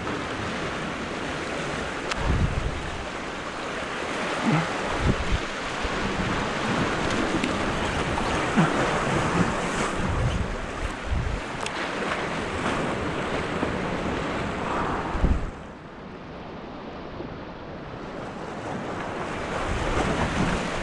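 Surf washing and foaming over the jetty's rocks, with wind buffeting the microphone in low thumps. The wash drops away noticeably about fifteen seconds in and builds again near the end.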